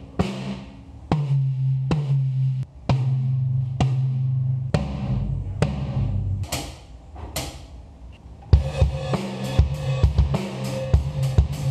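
Mapex acoustic drum kit being played for a microphone sound check: separate strokes about a second apart, some drums ringing on with a low tone after the hit, and a couple of bright cymbal strikes. About three-quarters of the way in it breaks into a fast run of hits across the kit.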